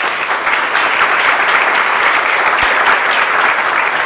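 Audience applauding: many people clapping at a steady, even level.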